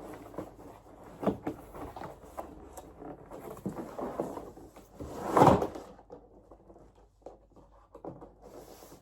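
Handling noise close to the microphone as the camera is moved: scattered knocks, clicks and rustling, with one louder rustling scrape about five and a half seconds in.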